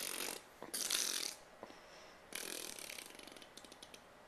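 Fart noises blown with the mouth, three raspy bursts, the last trailing off into a rapid rattling flutter.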